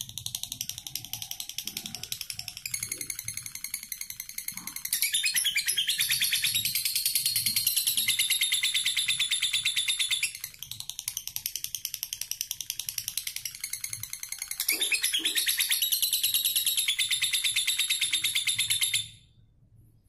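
Fischer's lovebird singing its long 'ngekek' trill: a continuous run of very rapid, high chattering notes that swells louder twice and cuts off abruptly about a second before the end.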